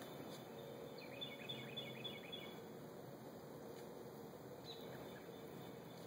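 A small bird calling: a quick run of about six high chirps about a second in, and another brief call later, over faint steady outdoor background noise.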